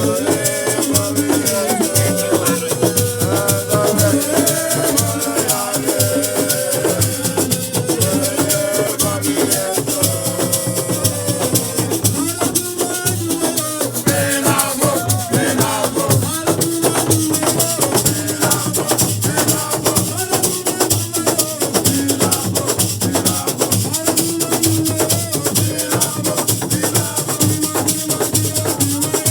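Music with a fast, busy shaker rhythm and a wavering melody line over it, possibly a singing voice.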